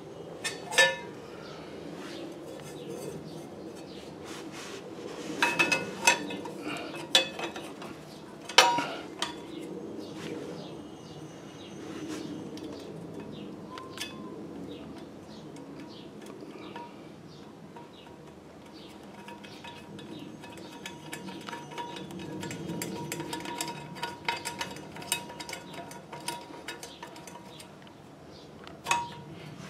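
Metal parts clinking and clanking as a small metal pulley is handled and fitted onto the shaft of an industrial sewing machine's clutch motor. There are several sharp clanks in the first nine seconds and one near the end, with quieter handling and rustling between.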